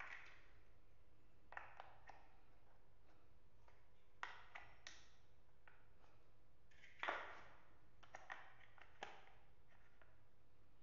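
Chunky plastic building blocks clacking and tapping as they are picked up and pressed onto one another: about a dozen short, sharp clicks in small clusters, the loudest about seven seconds in.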